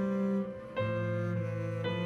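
Violin and piano playing slow improvised music: long held violin notes over sustained piano chords, with new notes struck just under a second in and again near the end.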